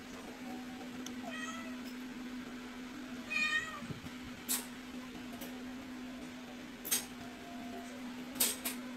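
A cat meows twice: a short meow about a second in, then a longer, wavering one about three seconds in. Later come a few sharp clicks as the cat eats from a plastic bowl, all over a steady low hum.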